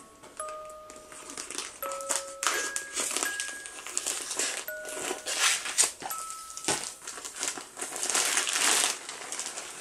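Crinkling of a body pillow's vacuum-sealed plastic wrap as it is handled and cut open with scissors, in irregular rustles.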